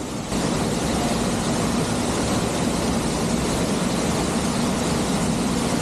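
Steady rushing of a waterfall pouring onto rocks close by, heard from the rock alcove behind the falls.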